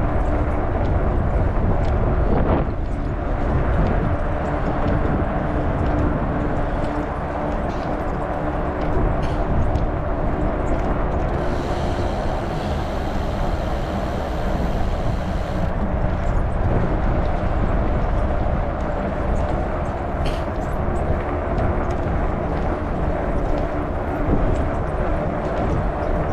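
Wind rumbling on the microphone and a steady tire hum from a Trek Farley 9.6 fat bike being ridden. A high buzz sounds for about four seconds midway.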